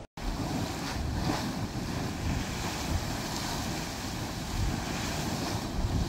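Geyser erupting: a steady rush of spraying water and steam, with wind buffeting the microphone.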